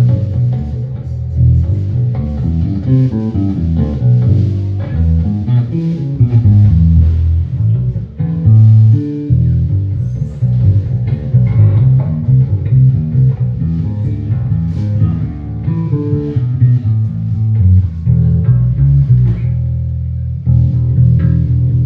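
Electric bass guitar playing a continuous run of plucked notes and riffs while its sound-check level is set.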